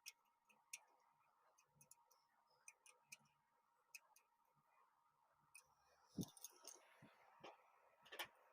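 Near silence, broken by faint, scattered clicks and taps of hand tools on the air conditioner's fan motor as it is being tightened down. A few louder knocks come about six to eight seconds in.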